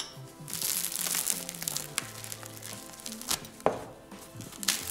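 Crusty bread torn apart by hand, the crust crackling for about a second and a half, then a few sharp snaps. Background music with a low bass line plays underneath.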